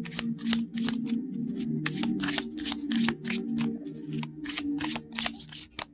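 A deck of oracle cards being shuffled by hand: quick crisp card slaps, about three a second, with a short pause near the end.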